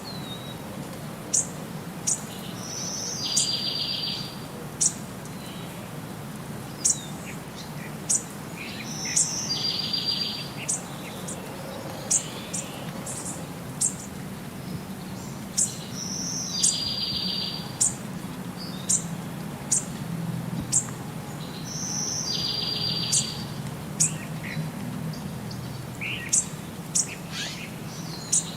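Birds chirping: sharp, high single chirps every second or two, and a song phrase, a short high note followed by a buzzy trill of about a second, repeated about every six and a half seconds. A steady low hum runs underneath.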